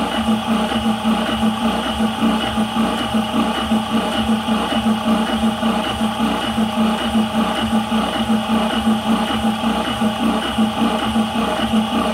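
High-pressure PCP air compressor running steadily under load, filling a 180 cc airgun air cylinder toward 200 bar. It makes a strong, even hum with a fast, regular pulsing.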